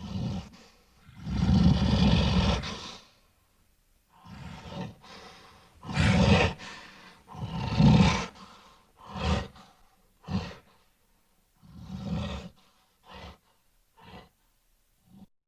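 Gorilla calling in a series of rough roars. The longest and loudest lasts about two seconds, starting about a second in, with more strong calls near six and eight seconds. After that come shorter, fainter calls spaced a second or so apart.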